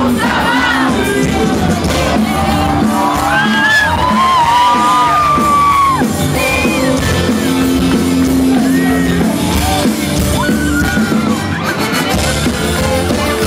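A band playing live at a concert, with sung vocals and yells over the instruments, loud and continuous.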